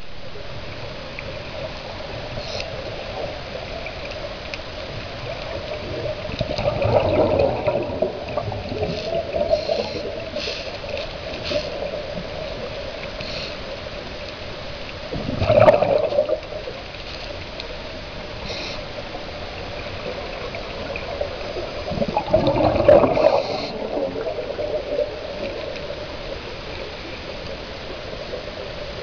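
Underwater scuba breathing: a diver's exhaled bubbles gurgle out of the regulator in three bursts about seven or eight seconds apart, over a steady underwater hum and hiss.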